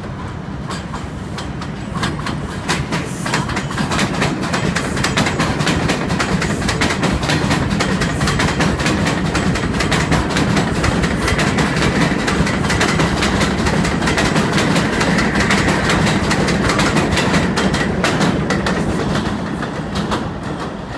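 R142 subway train passing along the elevated steel structure, its wheels clattering in rapid clicks over the rail joints. The sound grows loud about two seconds in, with a faint steady high whine in the middle, and eases off near the end as the train moves away.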